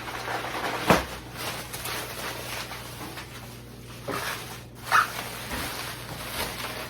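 Bubble wrap and plastic packing being pulled off a new honey extractor: irregular crinkling and rustling, with a sharp knock about a second in and another sharp sound about five seconds in.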